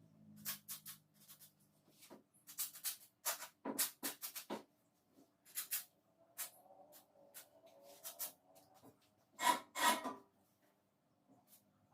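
Irregular clicks, taps and rubbing from hands working on a benchtop bandsaw while its blade is being changed, metal parts handled and knocked; two louder knocks come about nine and a half seconds in.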